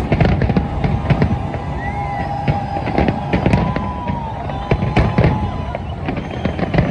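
Fireworks going off in rapid, irregular bangs and crackles, one after another with no break.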